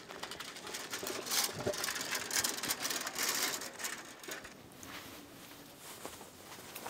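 Bicycle clicking and rattling as it is mounted and ridden off, a quick run of ticks and scrapes that is busiest over the first four seconds, then fades.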